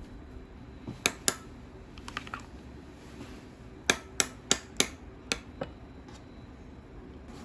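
Sharp clicks and taps of hard objects: two about a second in, a few light ones near two seconds, then a quick run of six at about three a second, over a low steady background hum.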